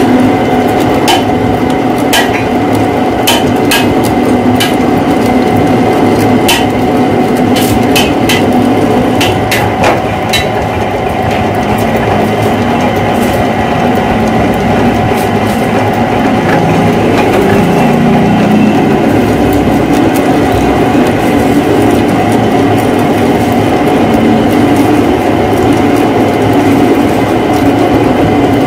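Metal lathe running while a single-point tool cuts a trapezoidal thread into a steel shaft: a loud, steady machine noise with a constant whine, and scattered sharp ticks from the cut, most frequent in the first third.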